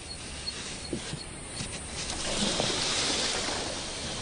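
A high, regular chirp about twice a second that stops a little over a second in, then a rush of splashing water that swells to its loudest about three seconds in and eases off: a crocodile going into the water.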